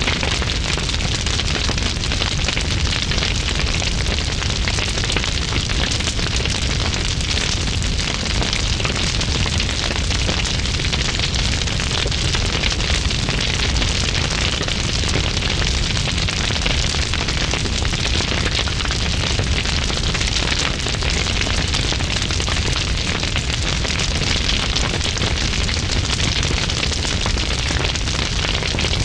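Large fire blazing: a steady deep rush of flames with dense, continuous heavy crackling.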